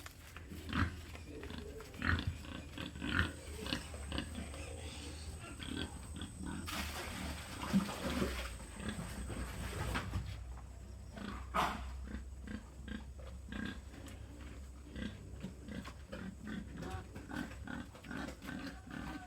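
Pigs grunting at their feed, in many short irregular grunts. A rushing, hissing noise runs for about three seconds, starting about seven seconds in.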